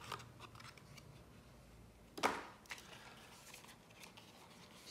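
Quiet rustling as the paper packaging of an Apple MagSafe charger box is handled and opened, with one short, sharp paper rip about two seconds in and a smaller one just after.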